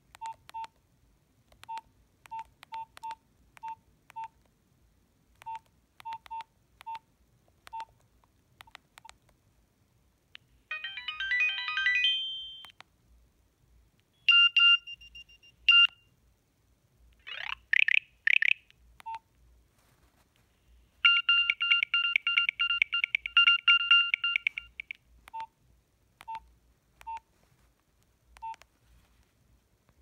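Nokia 3510i mobile phone: short keypad beeps as menu keys are pressed, then brief previews of its built-in tones from the phone's small speaker. These are a short ringtone snippet about a third of the way in, a few high beeps, two quick rising chirps, and a fast run of high beeps lasting about four seconds, followed by a few more key beeps.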